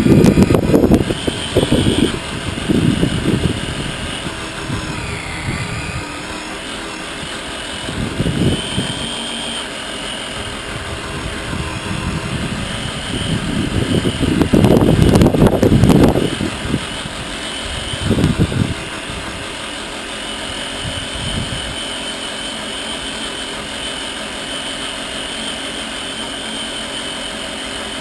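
Traxxas Summit RC truck's electric motor and gears whining as it drives over a dirt track, the whine rising and falling in pitch with the throttle. Bouts of low rumbling and rattling from the truck running over bumps come and go, loudest around the middle.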